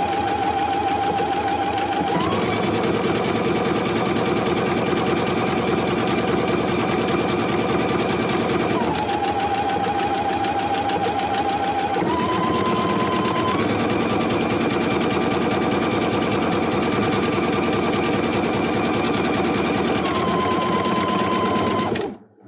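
Husqvarna Viking Epic 95Q sewing machine running steadily as it sews out a buttonhole. Its motor whine steps up and down in pitch several times. It stops abruptly shortly before the end.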